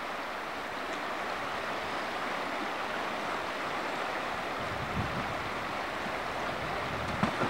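River water rushing through a rapid, a steady hiss. A soft low thump comes about five seconds in.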